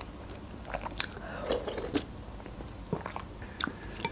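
Close-miked mouth sounds of eating a spoonful of borscht: chewing with scattered sharp, wet clicks of the lips and mouth, the loudest about one and two seconds in.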